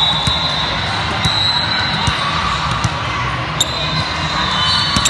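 Gym noise at a volleyball tournament: scattered sharp thuds of balls striking hands and bouncing on hardwood courts, over a steady hubbub of voices in the hall. A high thin tone sounds near the start and again near the end.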